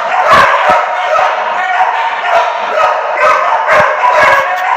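Several kennel dogs barking and yipping over one another without a break.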